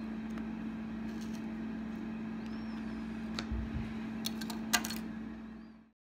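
Steady low kitchen hum, with a few light clicks of a knife against a plastic container and plate near the end. Then the sound cuts off suddenly.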